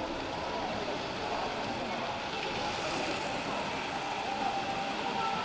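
Hornby Dublo model trains running around a layout: a steady mechanical running noise from the locomotives and wheels on the track.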